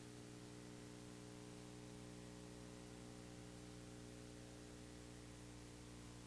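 Near silence: only a steady low electrical hum and hiss from the recording, with no game sound.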